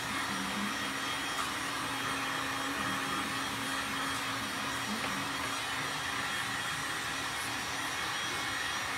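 Handheld heat gun running steadily, its fan blowing hot air to dry fresh paint: a constant rush of air over a low, even hum.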